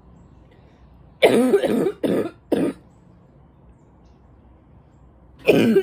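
A woman's congested, barking cough: a fit of three coughs about a second in, the first the longest, and another fit starting near the end. The congestion is what she puts down to allergies.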